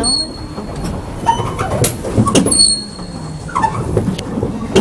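Pedal boat's pedal mechanism squeaking, a short high squeak about every two and a half seconds as it is pedalled through a cave, with faint voices in between.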